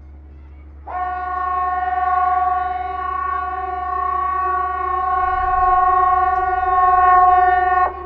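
Hesa Fredrik civil defence siren sounding its test signal across the park: one steady, unwavering blast of about seven seconds that starts abruptly about a second in and cuts off sharply just before the end. A fainter trace of the same tone lingers after the blast stops.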